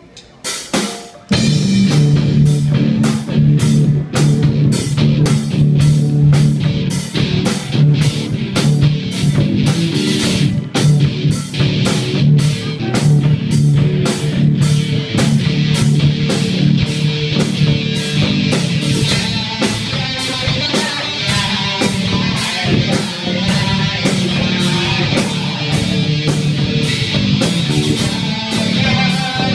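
A rock band playing live: an electric guitar riff over a drum kit and bass guitar, coming in abruptly about a second in and running on at a steady beat.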